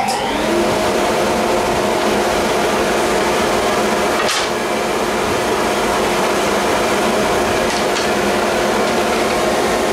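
Shop dust-collection motor switching on and spinning up, then running steadily with a hum of several tones. A single knock a little over four seconds in.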